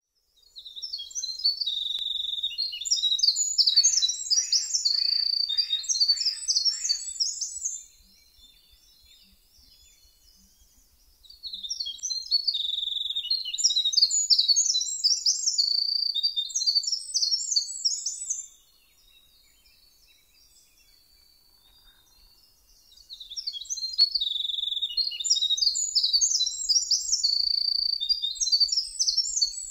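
A small songbird sings three long, high, rapid songs of tumbling notes, each lasting about seven seconds, with pauses of a few seconds between them.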